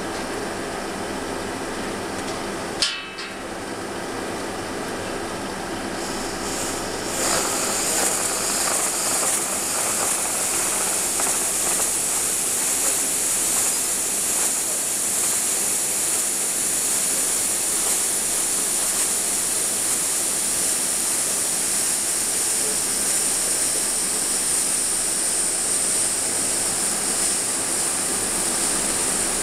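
Liquid nitrogen boiling off in a plastic tube with a steady hiss, which grows louder and brighter about seven seconds in and then holds. A single sharp knock comes about three seconds in.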